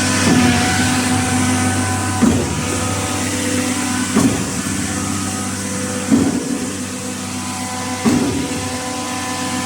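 Diesel concrete pump running steadily, its engine humming under a regular clunk about every two seconds as the pump cycles stroke after stroke.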